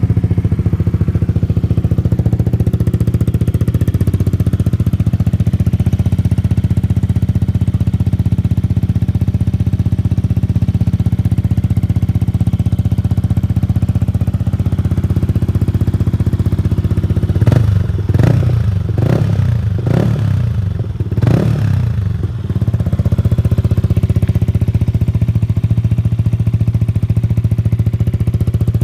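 Yamaha MT-15's 155 cc single-cylinder engine idling through an Akrapovič slip-on exhaust. About two-thirds of the way through, four quick blips of the throttle rev it up and let it drop back, and then it settles back to a steady idle.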